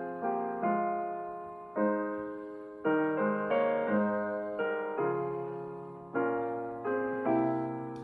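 Slow, gentle solo piano music: notes and chords struck about once a second and left to ring and fade.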